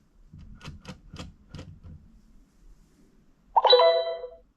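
Fisher-Price Linkimals Learning Narwhal electronic toy: a quick run of about five plastic clicks as it is handled and its buttons are pressed, then a short electronic chime from its speaker about three and a half seconds in.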